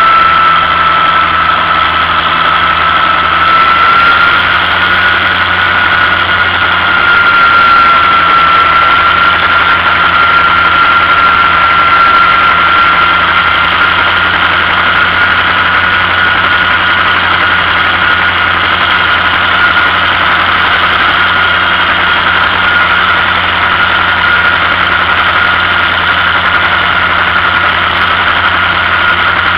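Vintage farm tractor engine running steadily under way, heard from aboard the tractor, with a steady high whine over it that steps up slightly about four seconds in.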